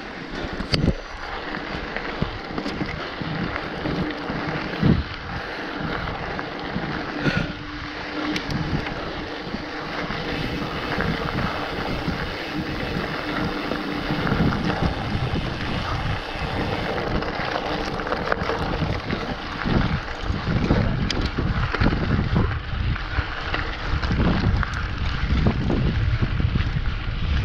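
Wind buffeting the microphone of a camera on a mountain bike's handlebars as it rides a gravel and dirt trail, with tyre noise on the loose surface and scattered sharp knocks and rattles from the bike over rough ground. The low rumble grows heavier in the second half.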